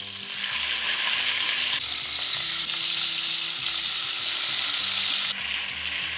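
Chunks of beef chuck sizzling as they sear in hot vegetable oil in an enamelled Dutch oven: a steady frying hiss that eases a little about five seconds in.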